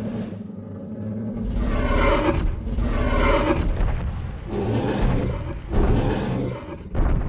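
Dinosaur roar sound effect for an animated Tyrannosaurus rex: a series of long, rough roars over a deep rumble, with a sharp thud or two near the end.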